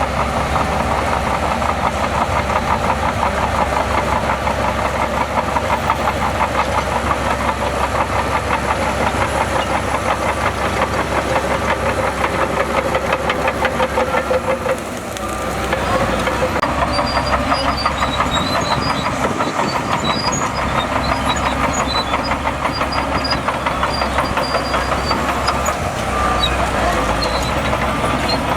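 Heavy diesel engine of an earthmoving machine running steadily with a rapid diesel clatter, dipping briefly about halfway through.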